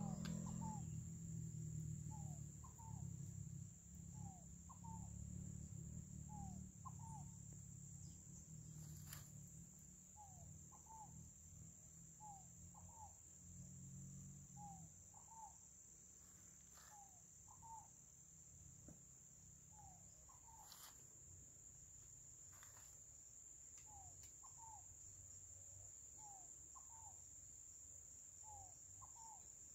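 Faint countryside ambience: a steady high-pitched insect buzz throughout, with short rising chirps, mostly in pairs, every second or so. A low wind rumble on the microphone fades out about halfway through.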